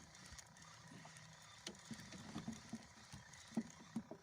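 Faint scattered knocks and taps over a low steady hiss, coming more often in the second half.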